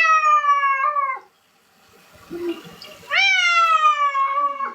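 Domestic cat meowing twice in long, drawn-out calls, each rising briefly and then sliding down in pitch. This is a cat protesting at being bathed.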